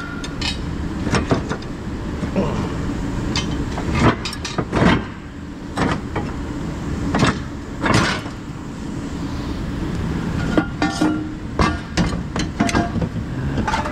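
Cast-iron brake rotors and drums clanking against each other as they are pulled out of a loaded pickup bed by hand, a dozen or so sharp metal knocks at uneven intervals over a steady low rumble.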